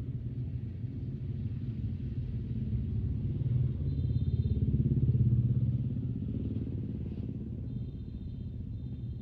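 Low engine rumble with a fast pulsing beat, swelling louder around the middle and then easing back.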